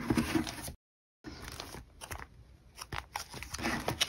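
Clear plastic photocard sleeve pages in a ring binder being turned and handled: irregular crinkly rustles and small clicks. The sound drops to dead silence for about half a second around a second in, then the rustling and clicking return more sparsely.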